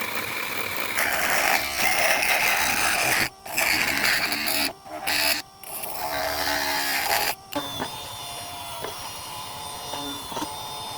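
Homemade 775 DC motor machine running with a rough, noisy whir that cuts out sharply several times in the middle, then runs on more quietly with a steady whine near the end.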